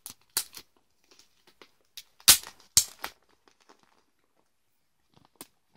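A plastic comic-book bag crinkling as its tape flap is peeled open, in short sharp rustles. The two loudest come a little past two seconds in, half a second apart.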